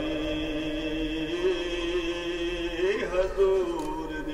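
A man's voice chanting a religious recitation in long held notes, with a short slide up in pitch about three seconds in before settling on a held note again.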